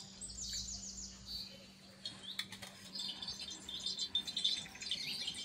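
Small birds chirping: a quick run of rising chirps near the start, then busier high twittering from about three seconds in. A few soft clicks come a little after two seconds.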